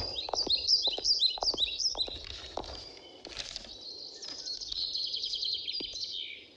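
Small birds chirping, a quick series of repeated chirps in the first two seconds and a fast twittering run about five seconds in. A soft knock at the very start and a few faint taps underneath.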